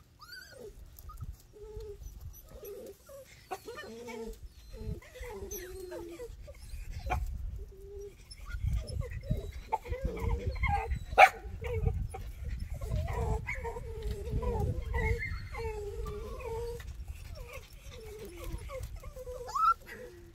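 Ten-week-old miniature pinscher puppies whimpering and whining in many short, sliding squeals, unhappy at being out in the below-freezing cold. A single sharp click about halfway through.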